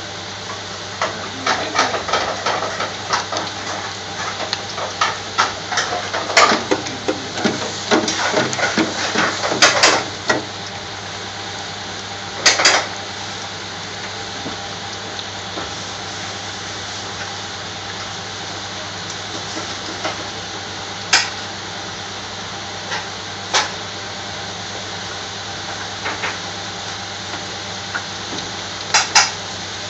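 French fries deep-frying in the basket of a commercial electric deep fryer: the oil bubbles and sizzles steadily. Sharp clicks and knocks come thick and fast for the first ten seconds or so, then only now and then.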